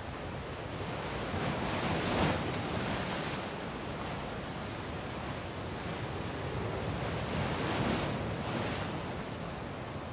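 Ocean surf: waves washing in, swelling twice, about two seconds in and again some six seconds later, over a steady rush.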